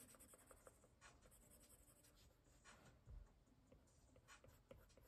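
Faint scratching strokes of an Apple Pencil tip on the iPad's screen as shadows are hatched, a few short strokes spread over very quiet room tone.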